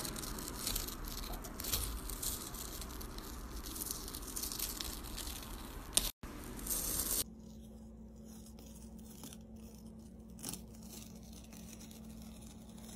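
Painter's tape being peeled off a canvas through thick wet acrylic paint, a tearing rasp. About six seconds in it cuts to a quieter peel with a faint steady hum under it.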